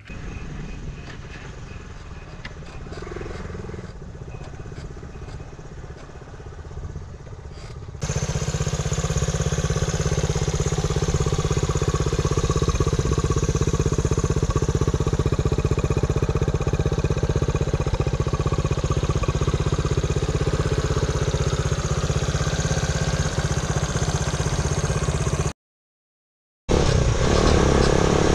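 Honda CT90's small single-cylinder four-stroke engine running steadily. About eight seconds in it gets much louder and stays at that level, with all sound cutting out for about a second near the end.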